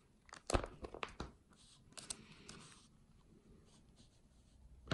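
Plastic sleeve page of a trading-card binder being turned by hand: crinkling with several sharp clicks, mostly in the first two and a half seconds, then a quieter stretch and one more click at the end.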